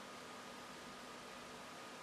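Faint steady hiss with a thin, steady high tone and a low hum: quiet room tone and recording noise, with no distinct event.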